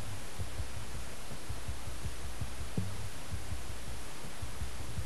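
Low, irregular thuds and rumble of movement noise picked up by a head-worn camera as the wearer climbs a stairwell, over a steady hiss.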